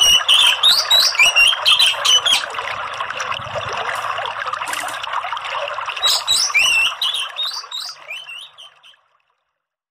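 Orange-headed thrush (anis merah) giving quick, rising chirping calls over a steady rush of running water. Both fade out near the end.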